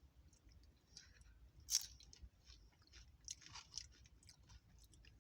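Close-up chewing and crunching of crisp tortilla chips loaded with toppings, with a sharp crunch of a bite about a second and a half in and more crunches a few seconds in.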